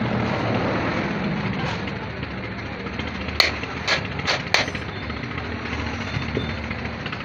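Four sharp knocks in quick succession in the middle, over a steady background of noise.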